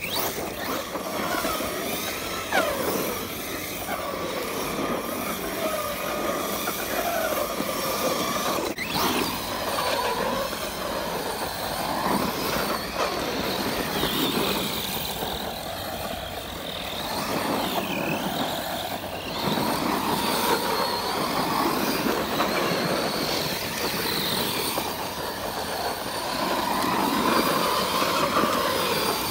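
Arrma Kraton BLX brushless RC monster truck on a 6S LiPo driven hard on loose dirt, sliding and spinning in circles. Its motor and drivetrain whine rises and falls in pitch with the throttle, with one sharp knock about nine seconds in.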